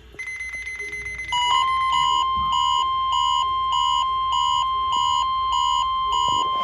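NOAA Weather Radio warning alarm: a steady tone of about 1050 Hz cuts in about a second and a half in. A receiver's alert beep pulses over it about twice a second, signalling that the test alarm has been detected.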